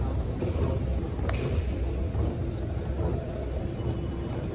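Steady low rumble of city traffic, with a single sharp click about a second in.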